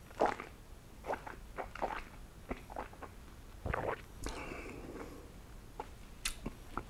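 Soft wet mouth sounds of someone tasting whisky: lip and tongue smacks and clicks as the spirit is moved around the mouth, with a breathy rush of air about four seconds in.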